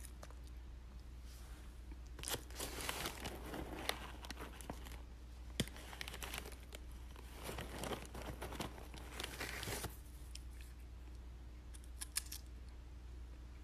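Plastic treat bag crinkling and rustling in two stretches of a few seconds each, with a few sharp clicks between them and near the end.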